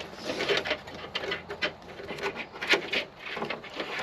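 Irregular clicks and rustles of hands working a washer hose and plastic trim inside the car's fender area, several sharp ticks a second.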